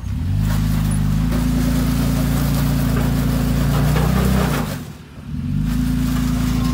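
Third-gen Toyota Tacoma's engine pulling steadily as the truck crawls over a sandy rock obstacle in low range, the revs easing off briefly about five seconds in and then picking back up.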